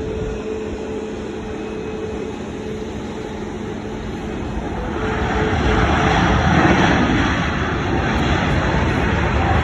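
Airbus A321-200 airliner on its landing approach, its jet engines a steady hum at first, then swelling into a loud rush about five seconds in as it passes closest, and staying loud to the end.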